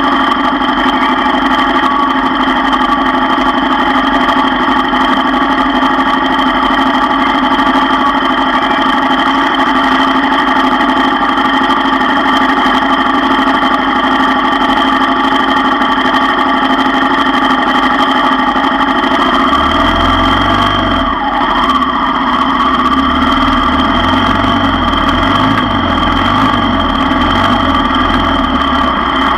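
ATV engine running steadily at low trail speed, its pitch holding level. From about twenty seconds in, a low uneven thumping joins it as the quad rides over rougher, rockier ground.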